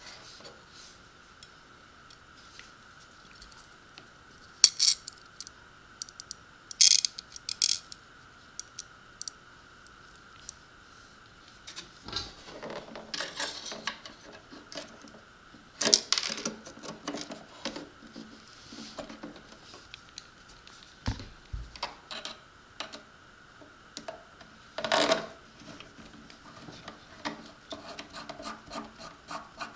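Small metal brackets clinking and clattering on a wooden tabletop as they are picked up and fitted to an RC jet boat's plastic nozzle housing: several sharp clinks in the first third, then a stretch of handling noise. Near the end a hex screwdriver turns a small screw with quick light ticks, over a faint steady high hum.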